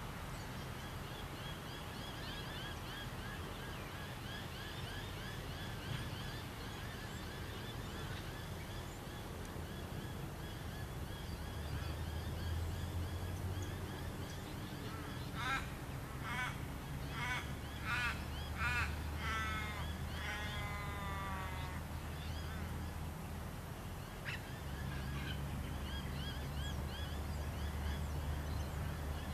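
Kobelco excavator's diesel engine running low and steady, rising twice as it takes load. Birds call over it: repeated high chirps, and about halfway a loud run of around eight harsh calls.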